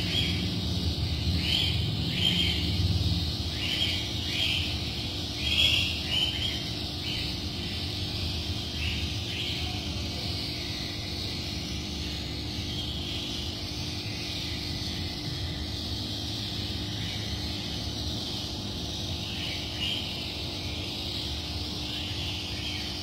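Steady hum and bubbling hiss of an aquarium air pump driving a sponge filter, with a run of short high blips during the first ten seconds or so.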